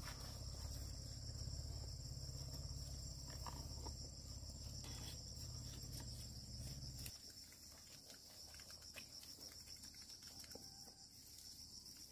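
Steady high-pitched chorus of insects, crickets or cicadas, continuous through the clip. A low rumble underneath stops abruptly about seven seconds in, with a few faint clicks.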